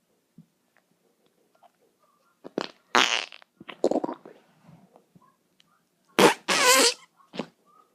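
Fart sounds in short bursts, starting about two and a half seconds in. Several come around the three-second mark, then a louder pair just after six seconds, the second held about half a second with a wobbling pitch, and a short last one near the end.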